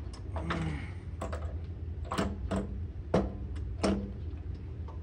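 Metal clanks and knocks, five short sharp ones spread over a few seconds, some with a brief ring, as the steel carrier frame of a Walker GHS mower deck is shifted by hand and set down onto the deck.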